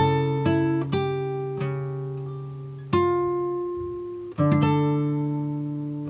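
Background music: plucked acoustic guitar notes, each ringing and slowly dying away, with a new note or chord every second or so.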